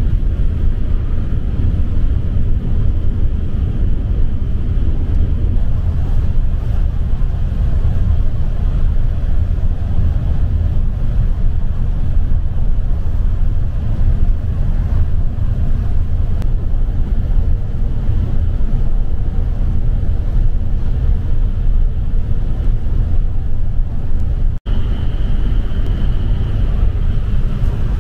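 Steady low rumble of a coach's engine and tyres heard from inside the moving bus on the highway. It cuts out for an instant near the end.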